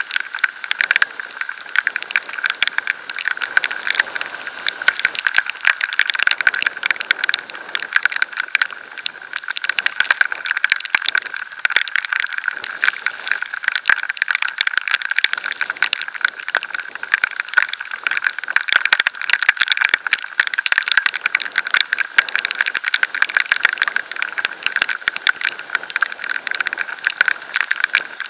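Dense, rapid patter of water drops, rain and road spray, striking the camera while riding at speed.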